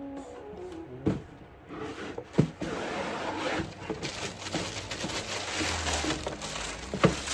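A cardboard shoe box being opened and its paper wrapping handled: a few sharp knocks from the box and a long stretch of crackling, rustling paper.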